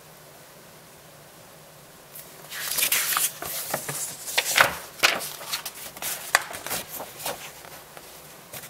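Paper rustling and crinkling as a folded newsletter and letter are handled and unfolded. A run of irregular sharp crackles starts about two seconds in and dies down near the end.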